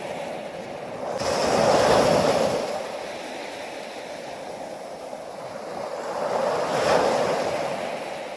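Ocean waves washing in, with two louder surges about five seconds apart.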